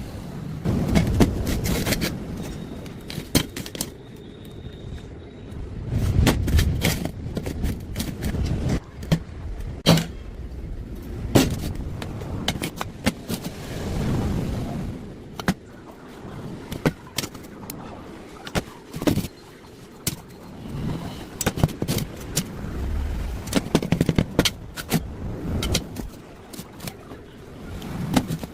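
Irregular sharp knocks and clatters, with bursts of low rumble between them.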